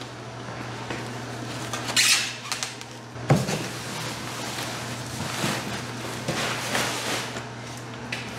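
Handling of a newly unboxed kitchen appliance and its packaging. There is a rustle about two seconds in and a sharp knock, like a door or panel being opened or shut, just after three seconds, then scattered rustling and scraping over a low steady hum.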